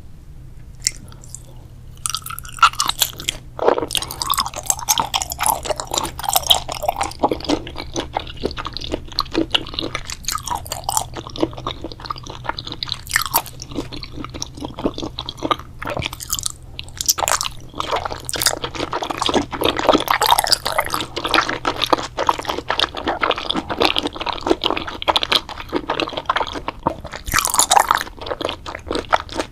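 Close-miked chewing and crunching of crunchy food or candy, starting about two seconds in, with many small crackling crunches.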